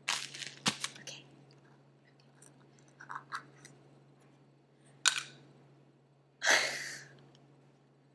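Rustling and clicking of small gift packaging being handled and opened, with a sharp click about five seconds in and a longer rustle about a second and a half later.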